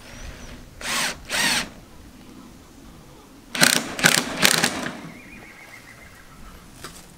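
Cordless drill driving 1¼-inch wood screws into 1x3 wood strips, in short bursts: two about a second in, then three quick ones near four seconds.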